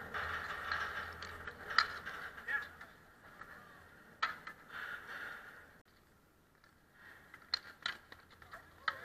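Ball hockey play: several sharp clacks of sticks and the ball striking, spread through the span and bunched near the end, over faint voices from the rink.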